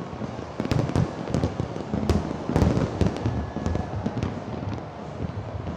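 Fireworks bursting in quick succession: many sharp bangs and crackles over a low rumble, busiest about two to three seconds in.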